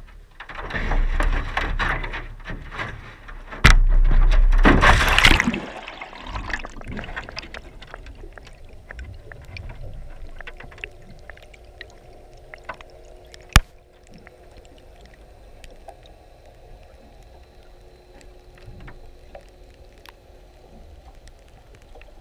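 A wire-mesh fish trap rattles as it is handled and then goes into the sea: a loud splash and rush of water about four seconds in gives way to muffled underwater sound. After that come scattered faint clicks, one sharp click about halfway through, and a faint steady hum.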